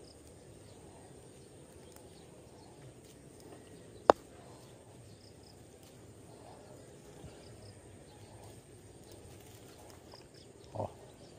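Air gun fired once: a single sharp crack about four seconds in, against a faint outdoor background.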